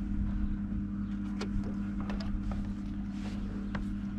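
Hot tub's pump motor running with a steady low hum, with a few faint clicks over it.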